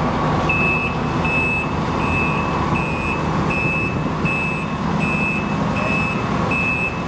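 A vehicle's reversing alarm beeping at an even rate, about three short beeps every two seconds, starting about half a second in, over the steady low running of an engine.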